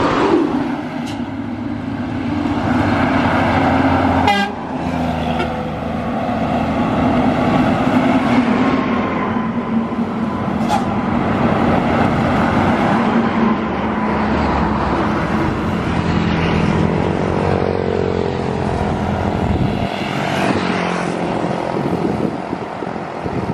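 Heavy highway traffic passing close by: an intercity coach, then a Mitsubishi dump truck, engines running and tyres on the road, with a vehicle horn sounding at times.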